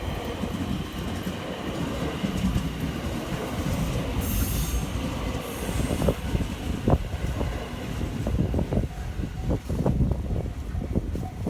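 Electric train on the JR Hanwa Line passing over a level crossing: a steady heavy rumble, with quick irregular wheel knocks over the rail joints through the second half.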